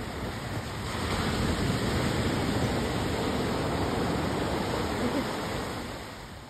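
Ocean surf: waves breaking and washing up the sand, growing louder about a second in and easing off near the end.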